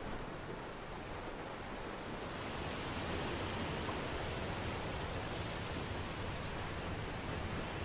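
Steady surf: small waves washing onto a sandy shore as a continuous hiss, which grows a little louder and brighter about two seconds in.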